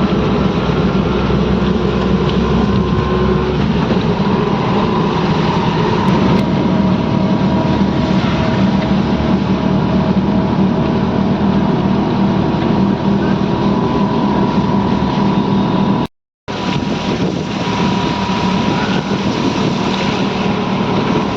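An engine running steadily under a loud rushing noise; the sound cuts out for a moment about three-quarters of the way through.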